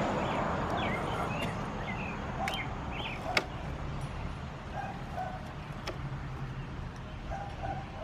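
Quiet outdoor background with a few short bird chirps, one sharp click about three and a half seconds in, and faint short dog whimpers in the second half.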